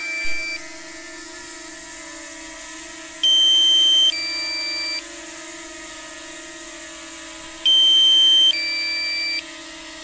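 DJI Mini SE low-battery warning: a two-note electronic alert, a higher note stepping down to a lower one, each held just under a second. It sounds twice, about four seconds apart, over a steady hum.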